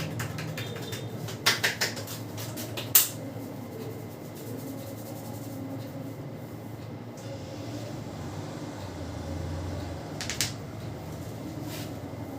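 Barber's hands working a head massage: a quick cluster of sharp snaps about a second and a half in, one loud crack about three seconds in, and two more snaps near the end, over a steady low hum.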